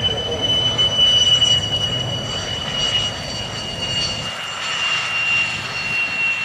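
Thunderbirds F-16 jet engine running as the fighter rolls along the runway: a loud high turbine whine, falling slowly in pitch, over a low rumble that drops away about four seconds in.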